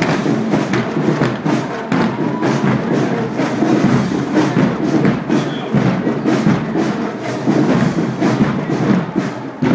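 High school marching band playing, its drums striking a steady beat of about two strokes a second under the band's music.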